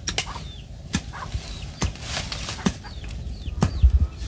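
Leaves and stems rustling and crackling as leafy garden plants are pulled and handled by hand, in an irregular string of sharp snaps. Short high bird chirps sound in the background.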